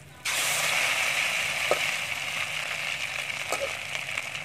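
Hot oil sizzling in a steel wok as a fish-paste and egg omelette is turned over and drops back into the oil: the sizzle jumps up suddenly just after the start and carries on steadily, with a couple of faint clicks.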